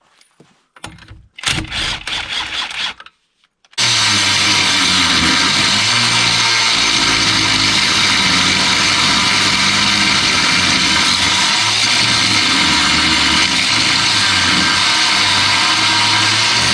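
Angle grinder cutting metal in a car's front wheel well, throwing sparks. A few short, broken bursts come first; from about four seconds in, it runs steadily and loudly with a high hiss over a low hum.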